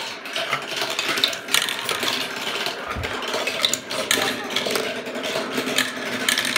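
Marbles rolling and clattering along a plastic marble-run track: a steady rattle with many quick clicks and clacks, and a low thump about three seconds in.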